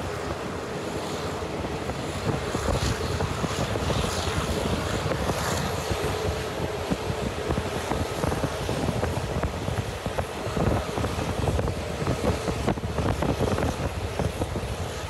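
Passenger train running along the line, heard from on board: a steady rumble with irregular rattling and clattering from the wheels and carriage, and wind buffeting the microphone.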